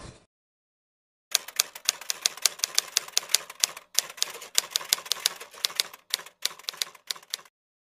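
Typewriter keystroke sound effect: rapid clacking keys, about five a second, starting about a second in after a brief silence. There are a few short pauses, and the keys stop shortly before the end.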